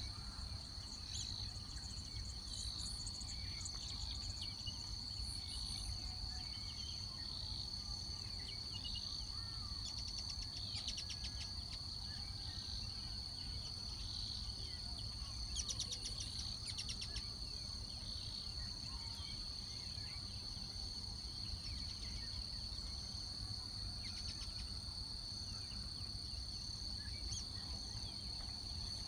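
Insects, crickets or similar, keep up a steady high-pitched trill, with short bird chirps scattered over it. Twice there is a brief rapid clicking rattle, the second a little past halfway.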